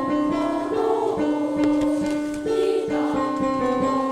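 A school class choir singing a song together in long held notes, over a recorded plucked-string, guitar-like accompaniment with a steady beat.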